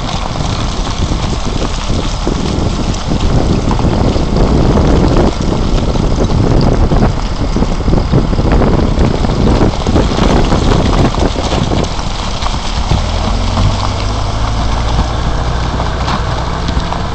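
A bulldozer's diesel engine running as the dozer pushes a boulder off the road edge. Rock and gravel clatter and crash down the slope with many sharp knocks. About twelve seconds in the clatter dies down and the engine's steady low hum is left.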